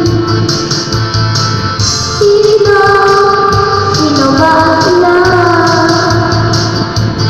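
Music: a song with a sung melody of long held, gliding notes over a steady beat.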